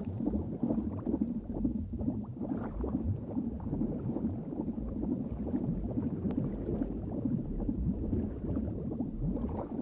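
Low, irregular watery gurgling and rumbling: an underwater womb ambience.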